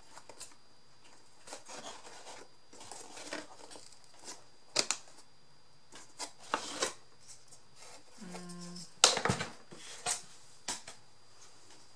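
Small clicks, taps and rustling from hand work on a miniature craft model, as small wooden pieces and tools are handled and fitted into place. There is a brief low hum a little past eight seconds, and a sharper click just after it.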